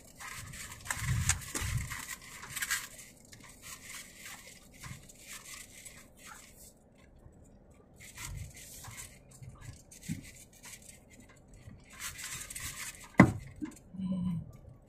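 Loose rattling and clinking inside a vehicle's cab as it bumps along a rough dirt track, with low rumbles from the ride and one sharp knock about 13 seconds in.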